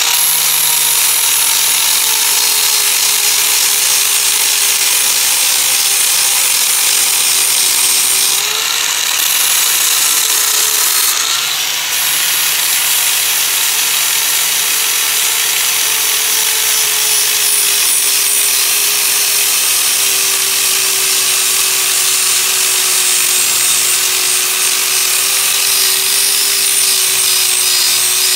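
Grinder with a cutting wheel running under load, cutting through steel sheet metal of a car's engine bay. Its steady high whine and gritty hiss sag in pitch as the wheel bites and rise briefly about eight seconds in.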